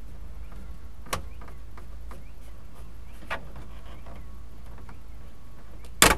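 A few sharp clicks as a screwdriver and a hand work along the weathered rubber seal and frame of a pickup's rear window, then a louder knock near the end, over a steady low hum.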